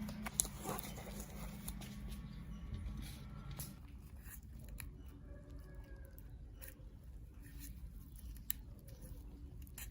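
Scattered light clicks and scrapes from small repair tools handling AirPod parts, with a low hum that stops about three and a half seconds in.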